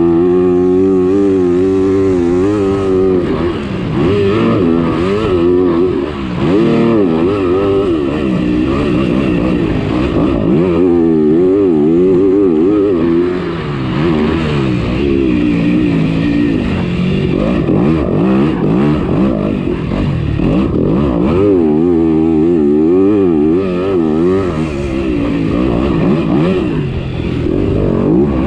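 Motocross bike engines racing, revving up and down over and over with the pitch rising and falling every second or so as the riders shift and throttle through the track.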